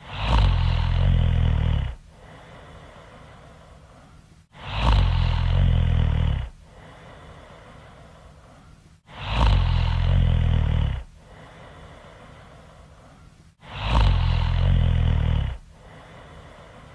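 A person snoring really loud in a slow, even rhythm: four loud snores of about two seconds each, one every four and a half seconds or so, with quieter breathing between them.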